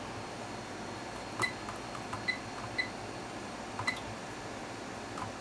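Hewlett-Packard 3458A 8.5-digit multimeter beeping as its front-panel range keys are pressed: about five short, high beeps at uneven intervals, some with the click of the key.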